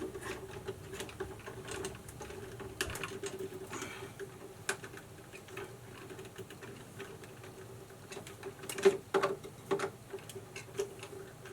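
Screwdriver tightening a breaker terminal screw on a stripped wire: light irregular clicks and scrapes of metal on metal, with a sharper knock about nine seconds in, over a faint steady hum.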